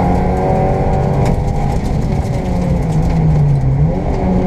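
Škoda Fabia 1.4 rally car's engine, heard from inside the cabin, running hard at high revs on a stage, its pitch rising and falling with the throttle.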